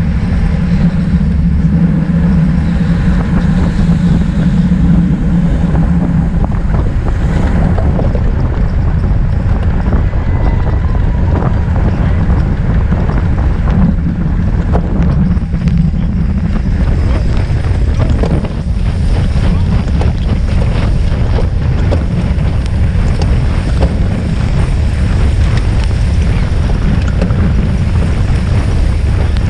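Wind rushing over a bike-mounted action camera's microphone at racing speed, with tyres hissing on the wet road. A low drone fades out about six seconds in, and frequent small knocks and rattles follow.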